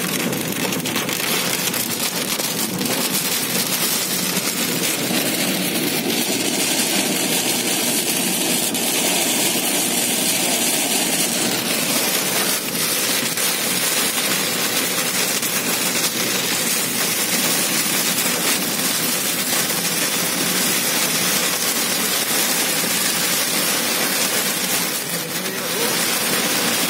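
Heavy rain beating on a moving car's windshield and roof, mixed with tyre spray and road noise: a dense, steady hiss.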